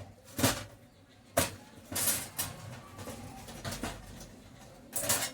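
Irregular sharp clicks and scrapes of tools and heater parts being handled, about six in all, two of them longer scraping sounds.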